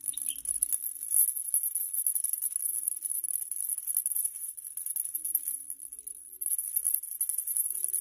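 A white-bellied caique shaking a small toy maraca in its beak: a fast, continuous rattle that eases off a little for a moment past the middle.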